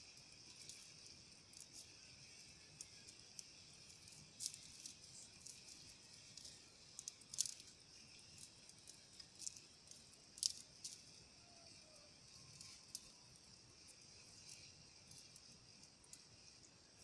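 Faint, steady high-pitched chorus of insects, with scattered sharp high ticks, loudest a few times midway.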